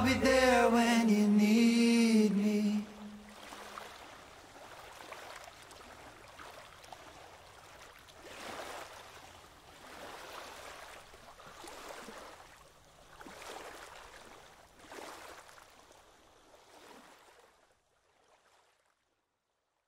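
Gentle waves lapping on a sandy shore, a soft wash that swells and ebbs every couple of seconds and fades out near the end. It opens with the last held note of a sung song, which cuts off about three seconds in.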